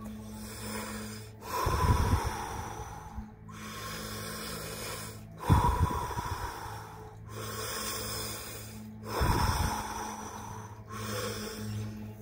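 Wim Hof power breathing: deep, forceful breaths in and out through the mouth, three big breaths about three and a half seconds apart. Soft background music with a steady drone runs underneath.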